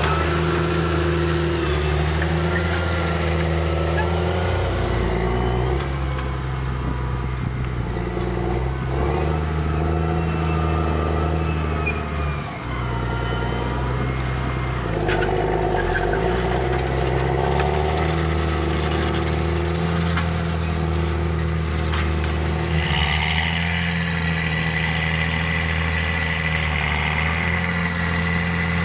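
CAT Challenger MT765B rubber-tracked tractor's diesel engine running steadily under load while pulling a disc harrow through corn stubble. Its pitch shifts a few times, with a brief dip about twelve seconds in.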